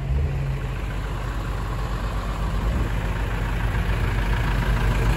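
A heavy truck's diesel engine idling steadily, a low even hum that grows a little louder toward the end.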